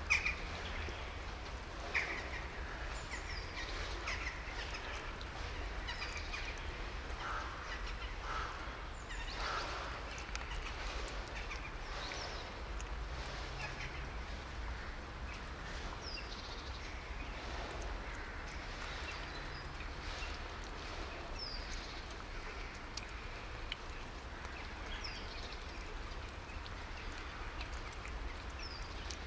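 A cat eating wet food: a run of short, irregular chewing and smacking sounds over a low steady rumble.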